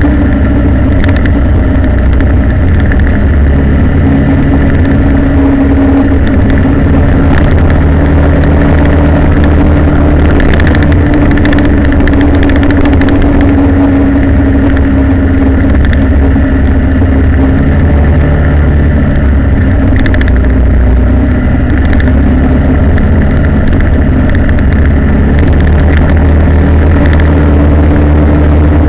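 A road vehicle's engine running steadily while on the move, with heavy low-pitched road noise and no sharp events.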